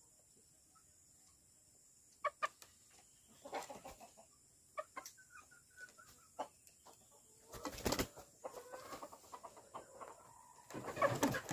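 Chickens clucking in short scattered calls after a quiet start, with a couple of louder noisy bursts in the second half.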